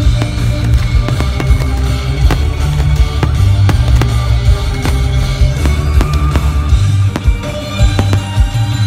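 Loud music with a heavy bass line and drums, mixed with the sharp bangs of fireworks going off.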